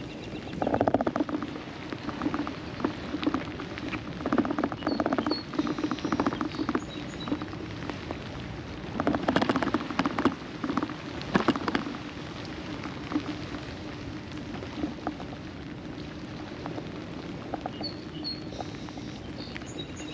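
Rain pattering, with clusters of close, sharp drop taps right at the microphone, over a steady low hum.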